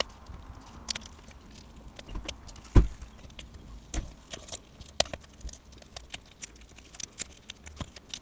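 Irregular small clicks and taps of hands and tools working on a laptop's internal parts and connectors, the loudest a knock about three seconds in.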